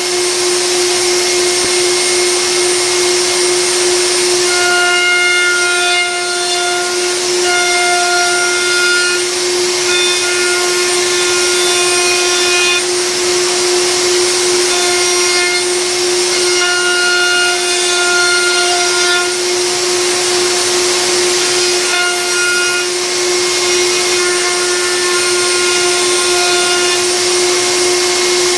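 Table-mounted router running steadily at high speed with a constant whine, its bearing-guided bit cutting the edge of a wooden cutting board. Stretches of higher cutting tone come and go as the board is fed past the bit.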